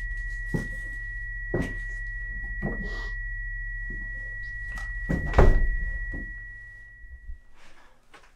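Film sound design: a steady high ringing tone over a low drone, with dull thumps about once a second early on and a much louder thump about five seconds in. The tone and the drone fade out near the end.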